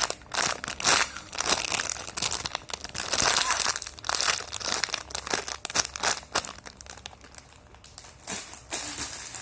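A squishy toy's plastic packaging crinkling and rustling as it is handled, in dense irregular crackles that thin out over the last two seconds or so.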